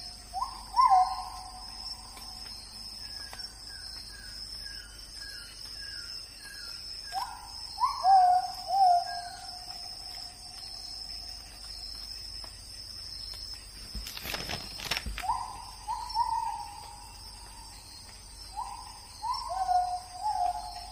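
Night forest ambience: an owl hooting in groups of two or three calls every few seconds, with a quick series of short descending chirps from another bird and a steady high insect drone. A brief crackling noise comes partway through.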